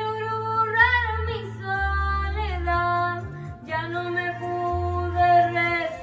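A woman singing held, gliding notes into a microphone over a band, with low bass notes changing about once a second.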